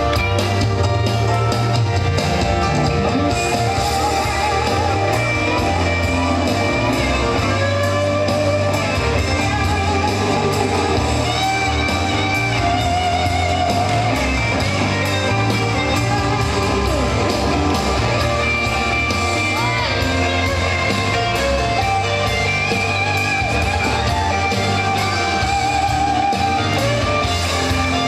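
Recorded song with guitar and a steady drum beat, played over a PA loudspeaker in a large hall.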